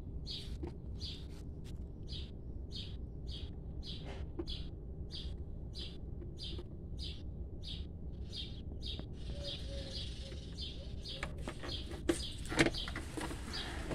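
A small bird chirping over and over, a short high chirp about twice a second, over a steady low background rumble. Two sharp knocks come near the end, along with some handling noise.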